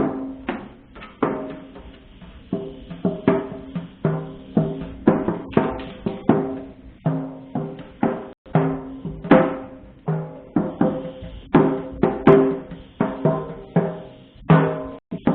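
Percussion playing: a busy, uneven run of drum strikes, two to three a second, each ringing briefly with a clear pitch, moving among several different pitches.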